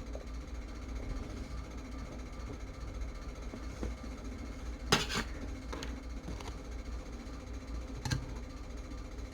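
A few sharp clicks and taps of small hand tools on a workbench during circuit-board soldering, the loudest about halfway through and another near the end, over a steady low hum.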